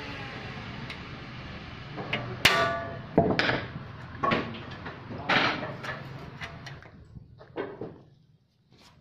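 Irregular knocks and clattering impacts, about eight of them, the sharpest a few seconds in, over a machine hum that dies away.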